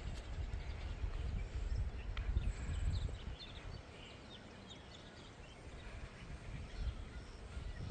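Outdoor ambience: wind rumbling unevenly on the microphone, easing off about halfway, with faint bird chirps scattered through.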